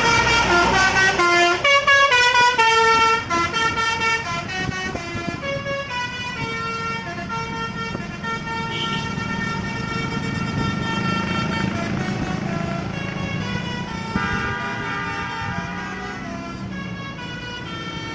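Basuri telolet horn on a bus playing a tune of stepped notes: quick notes at its loudest for the first three seconds, then longer held notes and another short run later, over the bus's engine running.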